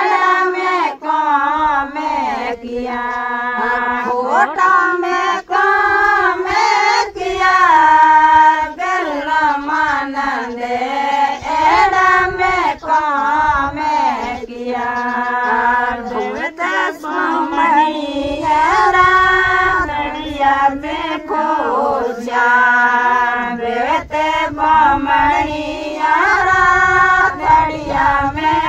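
A group of Rajasthani women singing a harjas, a Marwari devotional folk song, together in unison and without instruments. The melody moves in long, wavering phrases.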